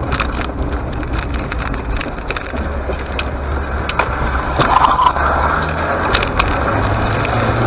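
A car driving, with steady engine and road noise under scattered clicks and rattles.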